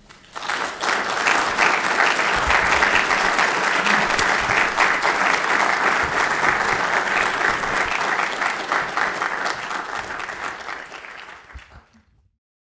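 Audience applauding: many people clapping. The applause starts about half a second in, holds steady, and fades out near the end.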